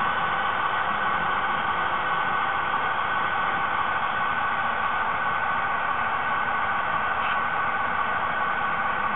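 HO-scale model train with sound-equipped DCC diesel locomotives running along the layout, heard as a steady, even hiss-like drone.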